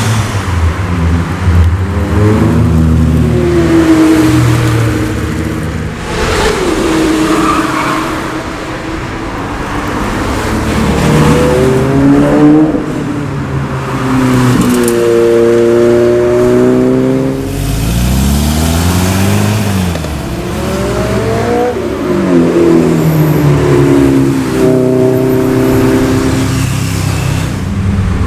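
Several cars passing one after another under hard acceleration, their engines revving up through the gears and dropping in pitch as each goes by.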